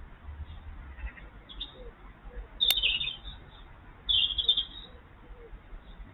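Bird calls: two short high bursts about a second and a half apart, the first starting with a sharp click.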